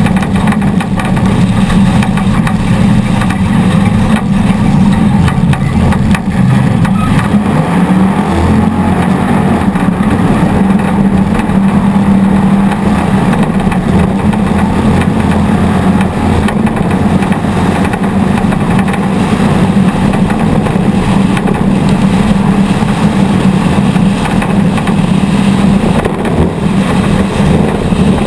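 Off-road race vehicle's engine running hard at speed, heard from on board, steady and loud throughout.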